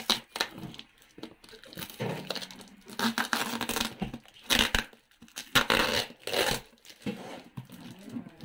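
Scissors cutting through packing tape on a cardboard box while plastic wrap crinkles and tears, in irregular bursts that are loudest around the middle.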